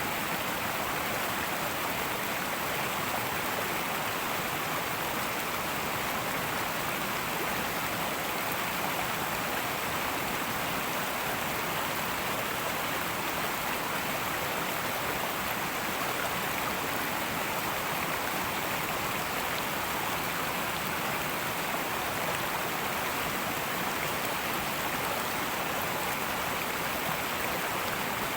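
Fast-flowing river rushing and babbling steadily, with a steady high-pitched drone of cicadas over the water.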